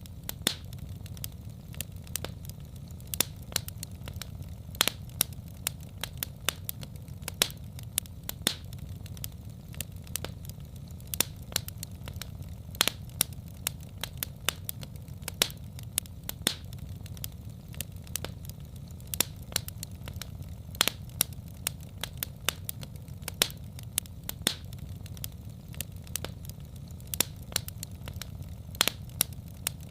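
Wood fire in a fireplace crackling: a steady low rumble of the flames with frequent sharp, irregular pops and snaps from the burning logs.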